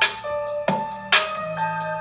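Instrumental hip hop beat between rapped lines: sharp drum hits and hi-hat ticks over a repeating keyboard melody and a bass line.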